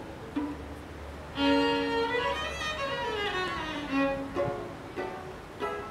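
Intro theme music: an instrumental string tune with a gliding melody line, swelling louder about a second and a half in.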